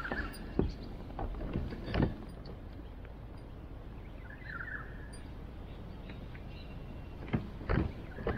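Shimano Sienna spinning reel being cranked as a hooked flathead is played, with several sharp knocks from handling the rod and kayak, the loudest about two seconds in and near the end.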